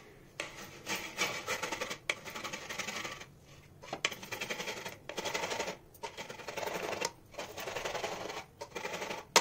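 Orange peel grated on a flat stainless steel hand grater: quick rasping strokes in runs of about a second, broken by brief pauses.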